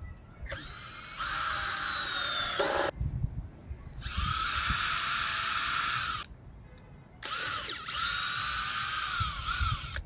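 Power drill working into timber in three runs of about two to three seconds each, each spinning up and winding down, with short pauses between.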